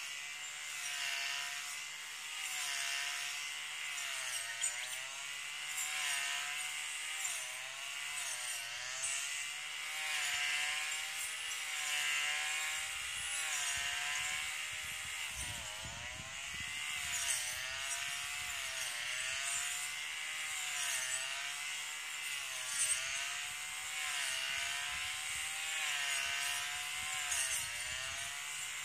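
Small two-stroke brush cutter engine running at working speed, its pitch dipping and rising every second or two as the spinning blade loads up in the grass and frees again.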